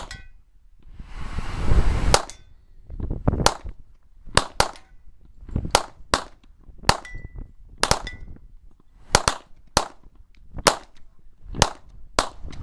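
AR-15 rifle shots fired in a fast string of about twenty cracks, irregularly spaced at one to two a second, after a brief rush of noise. A few shots are followed by a short metallic ring of a steel target being hit.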